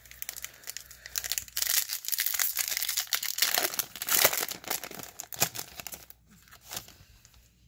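Crinkly foil wrapper of a Topps baseball card pack being torn open and crumpled in the hands, a dense crackling that is busiest in the middle and dies down near the end.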